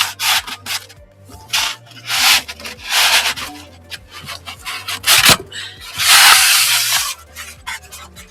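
Packaging being handled and unwrapped: a series of rustling, scraping bursts, with a knock about five seconds in and a longer scrape near the end.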